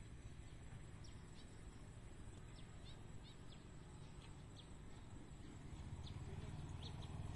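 Faint rural ambience: small birds give short, high, falling chirps at irregular intervals over a low steady rumble.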